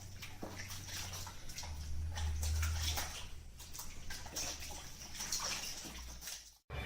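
Water splashing and sloshing in short, irregular bursts over a steady low hum.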